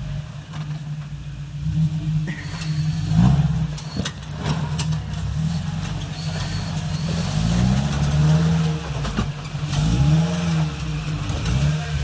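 Toyota Tacoma's 2.7-litre 3RZ four-cylinder engine under load, revving up and falling back several times as the truck climbs a rock ledge. A few sharp knocks come through, around three and four seconds in and again near nine seconds.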